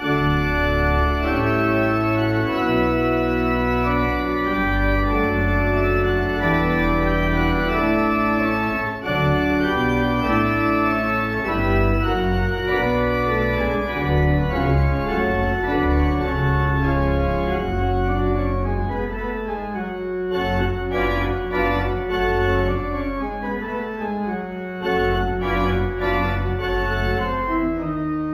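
Organ music played as the closing piece of a church service: sustained full chords over deep bass notes, starting abruptly, with quicker, more broken notes in the later part.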